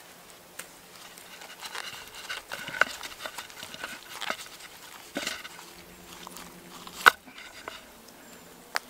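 Wooden skewer pins being worked out of a spit-roasted chicken on its wooden spit over a wooden plate: scattered clicks and knocks of wood on wood, with a creaking squeak between about six and seven and a half seconds in. The sharpest knock comes about seven seconds in.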